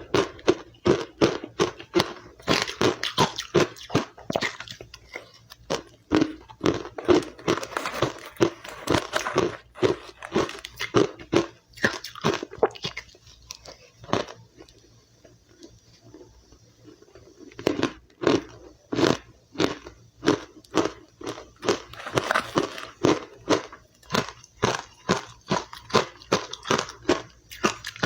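Powdery white ice being chewed close to the microphone: a rapid run of crisp crunches, about two to three a second. The crunching stops for a few seconds in the middle, then resumes.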